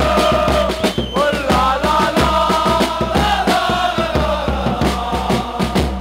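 Football ultras crowd singing a chant in unison to a steady drum beat.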